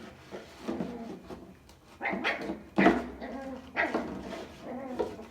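An angry puppy barking: a series of short, sharp barks and yips, the loudest a little under three seconds in.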